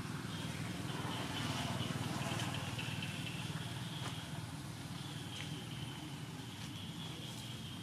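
Steady outdoor background: a high, wavering drone over a low rumble, swelling slightly a second or two in.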